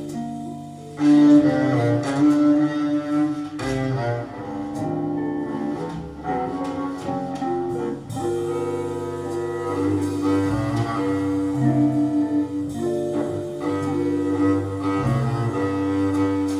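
Recorded music played back through a single-ended class A tube amplifier: held, sustained notes over a moving low bass line.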